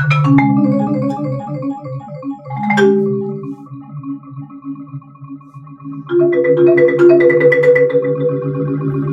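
Yamaha marimba struck with mallets together with a pre-recorded electronic tape part. A steady low tone holds underneath while a few ringing notes sound early, then a dense run of quick repeated notes starts about six seconds in.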